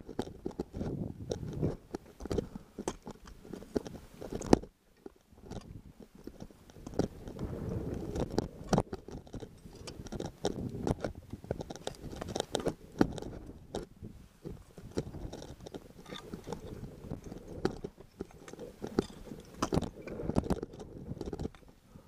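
Climbers' crampon footsteps crunching into snow and scraping on rock, close to the microphone, in an uneven rhythm, with a short break about four and a half seconds in.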